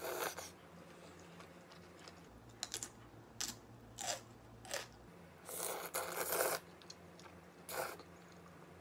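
Close-up mukbang eating sounds: black-bean-sauce noodles (jjajangmyeon) slurped off chopsticks and pickled yellow radish (danmuji) crunched between the teeth. It comes as a run of short wet slurps and crunchy bites, with one longer slurp about five and a half seconds in.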